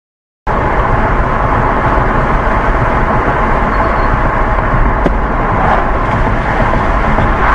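Steady road and wind noise inside the cabin of a moving 2014 Tesla Model S, an electric car with no engine note, starting abruptly about half a second in. Two faint ticks come about five seconds in.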